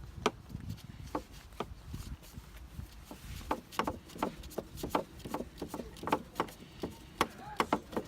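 Hand tools clicking and knocking on metal parts of an engine during work with a socket and ratchet: a series of short, irregular clicks, few at first and coming thick and fast from about three seconds in.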